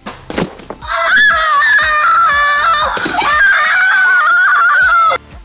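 A child's excited, high-pitched scream lasting about four seconds, wavering in pitch and cutting off suddenly, after a brief knock just before it.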